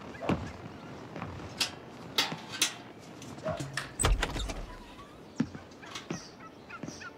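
Scattered knocks and clicks, with a heavier thud about four seconds in.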